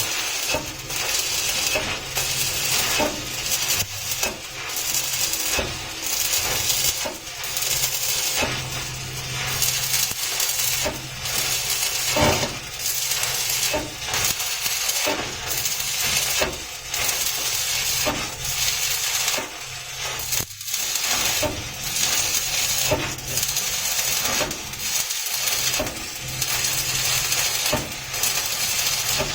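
Manual metal arc (stick) welding with an inverter welder: the electrode arc gives a steady crackling sizzle full of small pops, with a few brief breaks, over a steady low hum.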